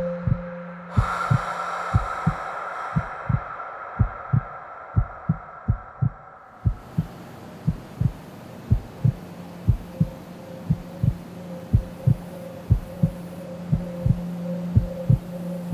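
Heartbeat sound, a low double thump repeating about once a second over a steady low hum.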